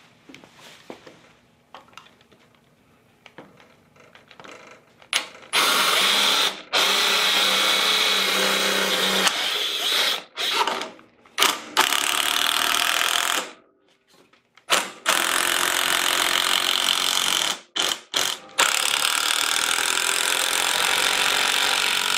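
A small cordless drill boring pilot holes through wooden 2x4 blocks. Its motor runs at full speed in long steady runs with short stops between them. The first few seconds hold only faint knocks of the wood and tool being handled.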